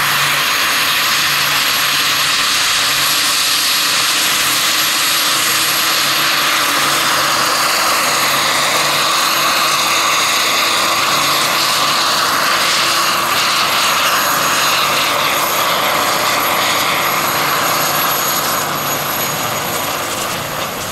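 Jakadofsky Pro X kerosene turbine and rotor of a giant scale-model SA-315B Lama helicopter running at flight power as it lifts off into a low hover: a steady high turbine whine over a loud rushing rotor noise, easing slightly near the end.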